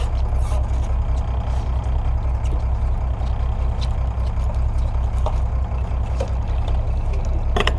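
Fishing boat's engine running steadily, a low, even throb.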